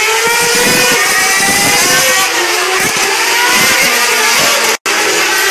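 Several Formula One cars' 2.4-litre V8 engines screaming past at high revs, several pitches sliding up and down over one another. The sound cuts out for an instant near the end.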